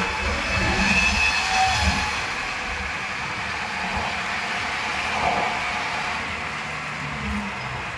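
Steady ride noise from inside a moving open-sided rickshaw: a low rumble under an even hiss.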